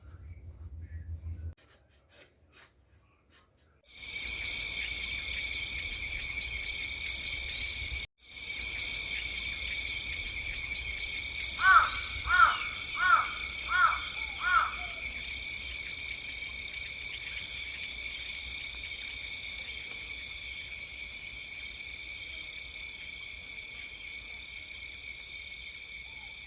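Steady chorus of insects chirping, starting a few seconds in with a brief break. About midway a bird calls five times in quick succession.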